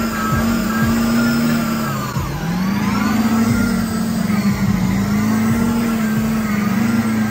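A truck engine revving hard, held near the top of its revs, its pitch dipping about two seconds in and climbing back up.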